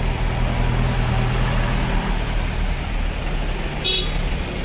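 Road traffic in a jammed street: vehicle engines running steadily, with one brief horn toot about four seconds in.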